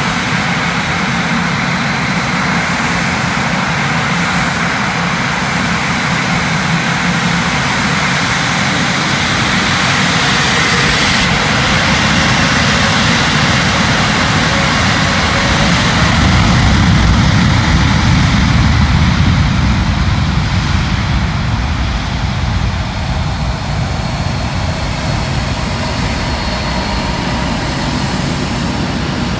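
Airbus A350's Rolls-Royce Trent XWB jet engines at takeoff power as the airliner rolls down the runway. A steady jet rumble that grows louder a little past the middle and eases off near the end.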